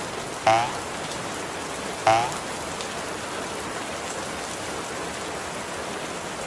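Railroad-crossing bell sound effect, the Japanese fumikiri 'kan-kan' ding, struck twice about a second and a half apart, each ding ringing out and fading. A steady hiss runs underneath and carries on after the dings stop.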